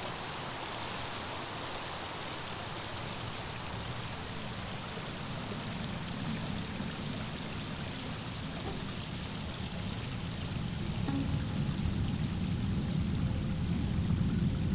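Steady rushing of flowing water, like a stream running. A deeper rumble swells and grows louder over the last few seconds.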